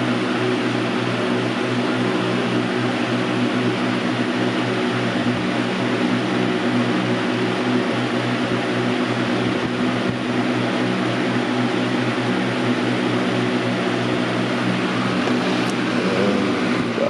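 Galaxy box fan (model 4733) running steadily on medium speed: an even rush of air over a low motor hum.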